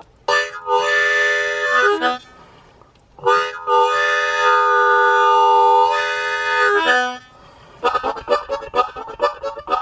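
Harmonica playing two long held chords with a short break between them, then going into a fast, evenly pulsed rhythmic chord pattern near the end.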